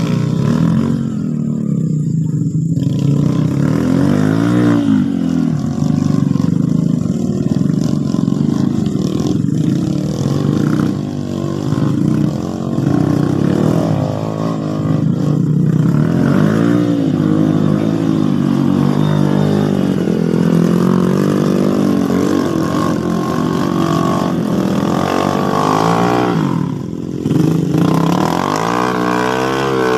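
Several small motorcycle engines revving hard on a muddy climb, their pitch rising and falling over and over, with a short lull about 27 seconds in.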